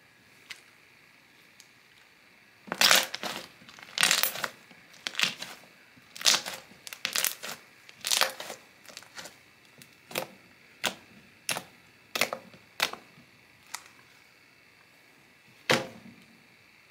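Homemade blue glue slime being squeezed, stretched and pressed by hand, making wet crackling pops and clicks as trapped air bubbles burst. A quick cluster of pops starts about three seconds in, then it thins to single pops, with a last louder one near the end.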